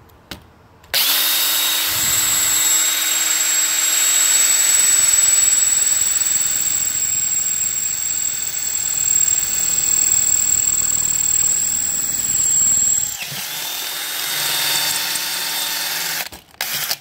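Cordless drill boring a hole through a metal wheelchair foot plate, a steady high whine for about twelve seconds. Its sound then changes to a lighter running note for a few seconds before it stops just before the end.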